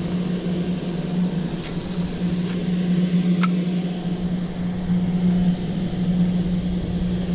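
A steady low mechanical hum over a wash of noise, switching on abruptly and running evenly, with one faint click about three and a half seconds in.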